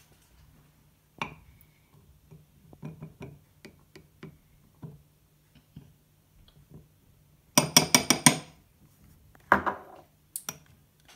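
A small glass bowl clinking against a ceramic mug as flour is tipped in. Scattered light knocks, then a quick run of about six sharp clinks a little past halfway and a few more near the end.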